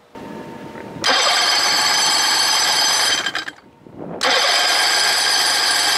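Outboard motor's electric starter cranking the engine in two runs of about two to three seconds each, with a short pause between: a steady high whine and no firing. Typical of the no-spark fault being chased here, with the plug coming out fuel-soaked, which the mechanic suspects is an intermittent spark.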